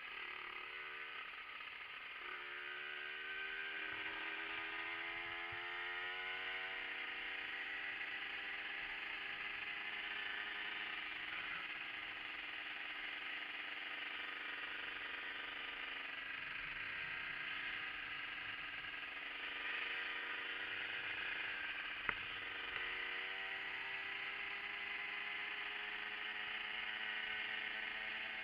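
Yamaha TZR50 moped's two-stroke engine heard on board while riding. It pulls up through the revs over the first several seconds, then runs fairly steady, rising again later on. A single sharp tick sounds about two-thirds of the way through.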